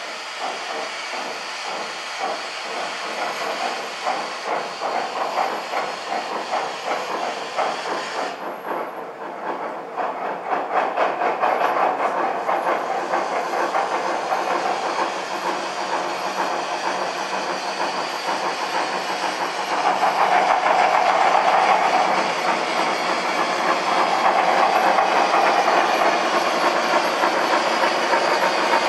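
Two gauge 1 (1:32) model BR 85 steam locomotives double-heading a train, with a rapid, even steam chuffing. It grows louder about ten seconds in and again near twenty seconds as they approach and pass.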